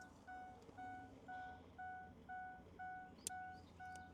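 Faint electronic warning beeper sounding a steady run of short, evenly spaced beeps, about two a second. A single sharp click about three seconds in.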